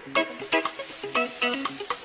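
Background music with a steady beat: regular drum hits under pitched chords.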